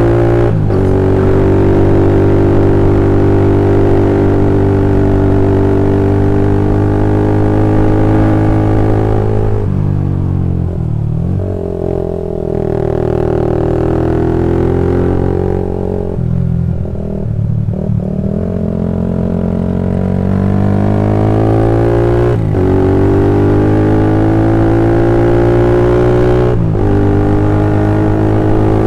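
Old Honda CB150R single-cylinder engine running through a 26 cm BPro Racing aftermarket silencer while being ridden: a steady exhaust drone that eases off in the middle and then climbs in revs again. Near the end the revs rise and cut briefly twice, as at gear changes.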